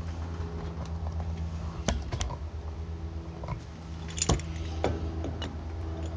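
Light metal clicks and knocks of a steel C-clamp being handled and set down on a milling machine's slotted table to test-fit a freshly milled notch, the loudest knock about four seconds in. A steady low hum runs underneath.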